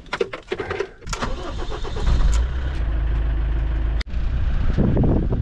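Motorhome engine starting and then running with a loud, steady low rumble. A few clicks and knocks come first, and the rumble builds about a second in.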